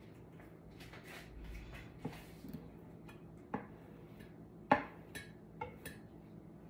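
Light clicks and taps of a metal palette knife being handled and set down among paint cups, with a soft rustle first; about six taps, the sharpest a little past the middle.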